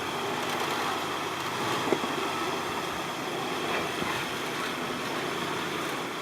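An off-road 4x4's engine running steadily.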